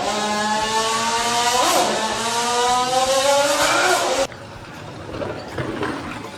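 A vehicle engine running hard, its pitch slowly climbing with two brief dips, cutting off abruptly about four seconds in; quieter, indistinct sounds follow.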